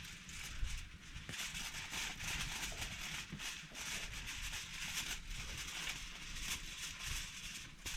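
Aluminium foil crinkling and rustling in uneven crackles as a sheet is unrolled and wrapped around stakes.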